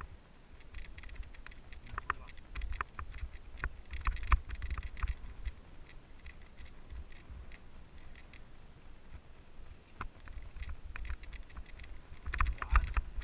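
Wind buffeting the action camera's microphone, with scattered clicks and rattles of a mountain bike on a rough trail. Louder between about two and five seconds in and again near the end.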